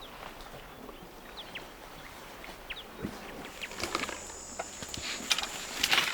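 Outdoor bush ambience: a few short bird chirps, then a thin, steady, high insect buzz that begins about halfway through. Near the end, louder crackling and rustling of vegetation.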